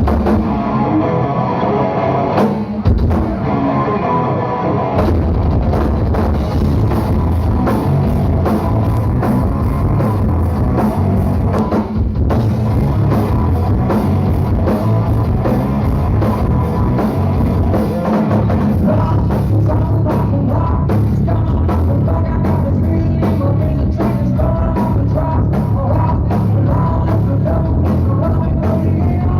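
Rock music played by a band with drum kit and guitar, loud and steady. The full drum beat comes in about five seconds in.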